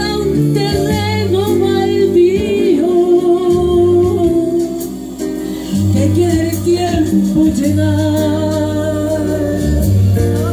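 Voices singing a slow ballad over backing music, with the melody wavering and held low notes underneath.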